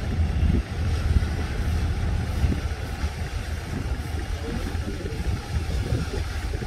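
Steady low engine rumble of a fast passenger ferry under way, with the rush of water along its hull.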